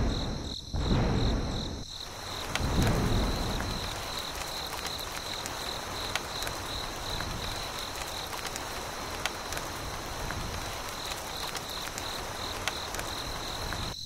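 Steady rain falling, with insects chirring in a fast pulsing high tone over it. Two louder low rushes come in the first three seconds.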